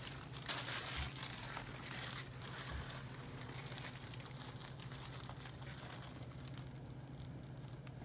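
Paper crinkling and rustling in small irregular crackles close to the microphone, over a low steady hum.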